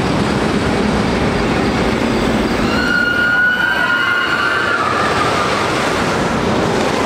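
Wooden roller coaster train running along its wooden track with a steady loud rumble. About three seconds in, a high sustained squeal rises over it for a couple of seconds.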